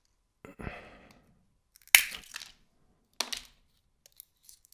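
Walnut shells cracking as they are squeezed by hand: a soft crunch about half a second in, a sharp loud crack about two seconds in, and another crack just after three seconds.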